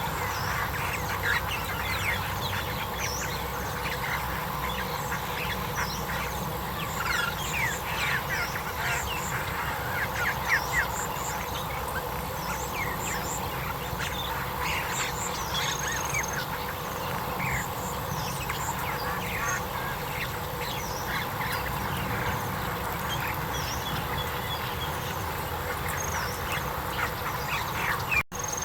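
A dense chorus of many short, overlapping quack-like animal calls.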